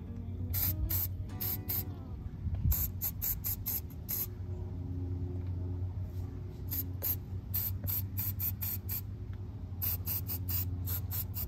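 Aerosol can of battery terminal protector sprayed onto lead-acid battery terminals in many short spritzes, grouped in runs with a pause of about two seconds just before the middle. Background music plays underneath.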